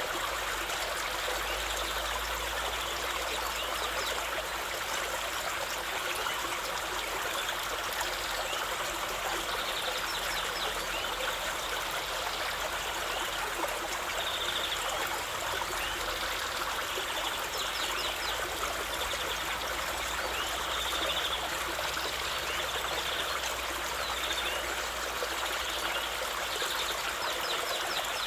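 Water from a garden water feature trickling and splashing steadily.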